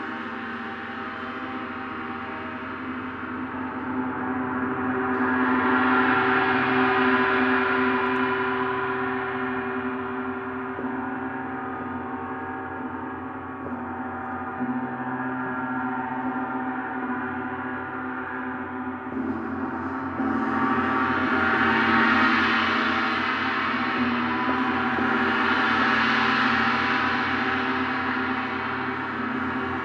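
Planetary gong ringing with a long, sustained shimmering wash of overtones. It swells about six seconds in, then fresh swells build from about twenty seconds in.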